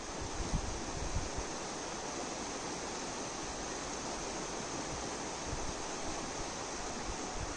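Shallow stream running over a stony bed: a steady rushing of water.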